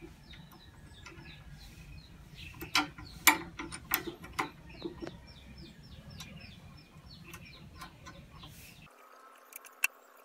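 Sharp metal clicks and clinks of a hex socket wrench against the bolt and derailleur hanger on a steel bike frame, loudest in a cluster a few seconds in, with one more click near the end. Birds chirp over and over in the background. Near the end the low background hum drops out and a faint steady tone comes in.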